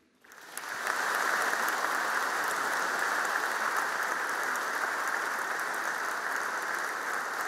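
A large seated audience applauding steadily, the clapping swelling up within the first second.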